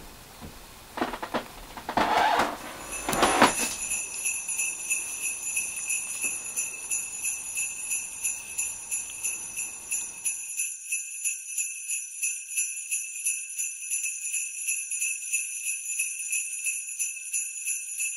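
Sleigh bells shaken in a steady, even rhythm, starting about three seconds in. Before them come a few thumps, the loudest just as the bells begin.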